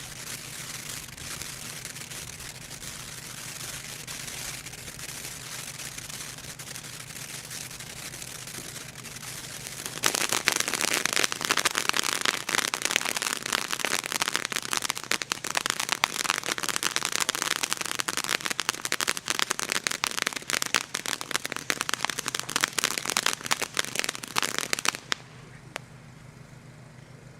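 Firework going off: a steady hiss for about ten seconds, then loud, dense, rapid crackling for about fifteen seconds that cuts off suddenly near the end.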